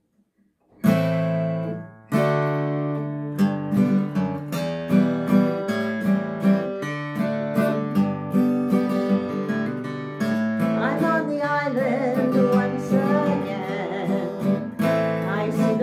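Acoustic guitar strummed: a first chord about a second in that rings and fades, a second chord a second later, then regular strumming. A woman's singing voice joins about eleven seconds in.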